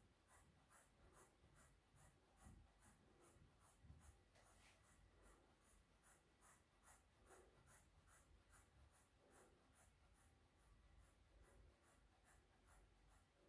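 Faint crunching of scissors snipping through a thick braid of long hair, about three cuts a second.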